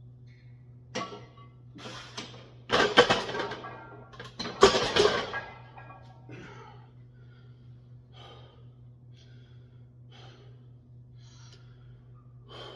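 A man's hard breathing and straining grunts while pushing reps on a barbell. The two loudest strained, voiced exhalations come about three and five seconds in, and are followed by quieter, spaced-out breaths over a low steady hum.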